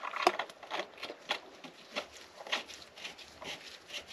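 A steel through-bolt with its washer being worked into its hole in the floor and hull timbers, giving a run of short knocks and scrapes about three a second, the loudest just after the start.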